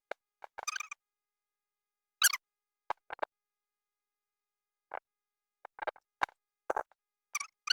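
Hand-sewing a hair fringe onto a wig cap: short, irregular scratchy rustles as the needle and thread are drawn through the cap and hair, about a dozen in a row.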